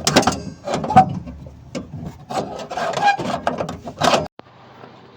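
Irregular scraping, rubbing and knocking of hand work on metal parts, stopping abruptly about four seconds in; faint room noise follows.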